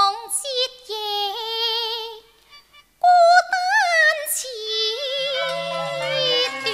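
Female Cantonese opera (yuequ) singer holding long drawn-out notes with a wide vibrato, wordless melisma on a vowel. About two seconds in she breaks off briefly, then comes back in loudly. From about five seconds in, low sustained notes of the accompaniment sound beneath her voice.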